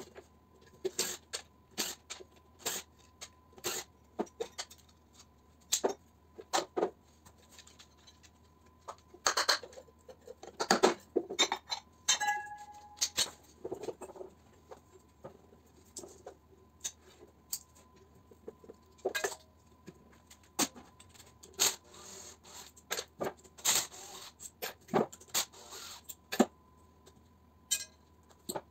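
Irregular metal knocks and clinks as electric motor parts (steel housing, rotor and end bell) are handled and struck apart, with one piece ringing briefly about twelve seconds in.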